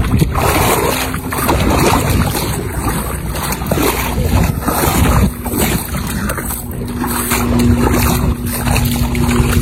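Wind buffeting a phone's microphone at the shoreline, over shallow water and surf. A steady low hum comes in about seven seconds in.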